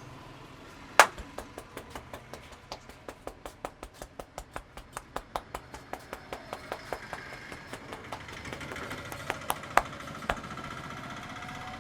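Barber's hands slapping a customer's head in quick succession during a head massage: one loud slap about a second in, then a fast even run of sharp slaps at about five a second, ending in a few louder separate slaps near the end. A steady hum of road traffic runs underneath.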